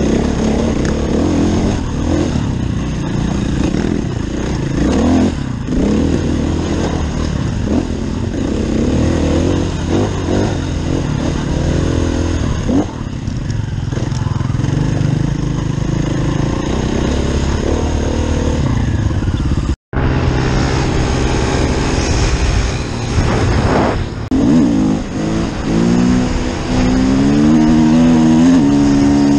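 Enduro dirt bike engine being ridden hard on dirt trails, its pitch rising and falling with the throttle, with a brief dropout about two-thirds through. Near the end the engine pitch climbs in steps as it accelerates up through the gears.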